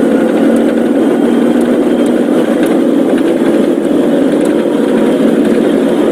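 A car driving, with steady engine and road noise and no change in level.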